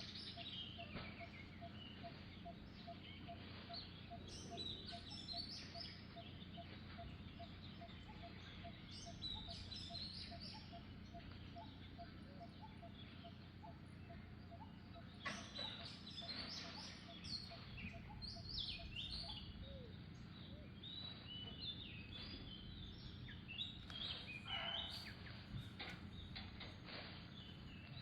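Birds chirping in the background, with a run of short, evenly spaced pips that stops about two-thirds of the way through, over a steady low hum of outdoor noise.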